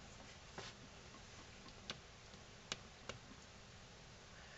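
Near silence with four faint, sharp clicks as multimeter probe tips are handled and touched to the leads of a small ceramic capacitor on a wooden bench.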